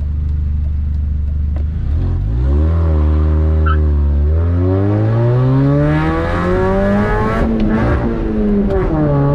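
Supercharged Mini Cooper's four-cylinder engine pulling through the gears. The revs rise about two seconds in and dip at a gear change just after four seconds. They then climb steadily for several seconds until another shift drops them near the end.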